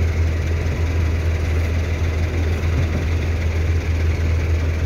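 Diesel bus engine idling steadily, a deep even hum with no change in speed.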